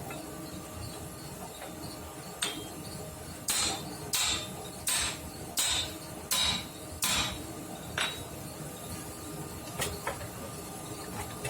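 Hammer striking steel: one blow, then an even run of six about 0.7 s apart, then two lighter single blows, over a faint steady hum.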